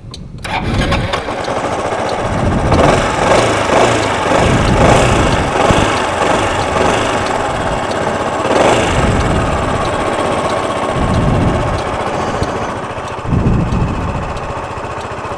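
A motorcycle engine running, its sound swelling and easing a few times.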